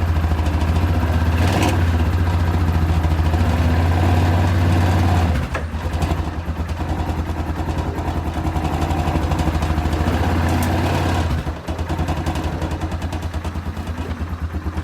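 Quad bike engine running at low revs while it reverses with a trailer hitched, dipping briefly about five and a half and eleven and a half seconds in.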